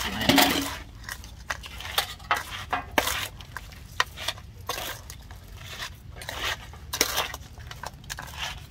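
A metal spoon tossing crab salad in an aluminium bowl: irregular clinks and scrapes of the spoon against the bowl's side as the mix is scooped and dropped, several a second, the loudest just after the start.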